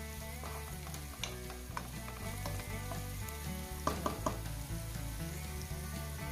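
Chopped onions sizzling steadily in hot coconut oil, with a few short knocks during the stirring.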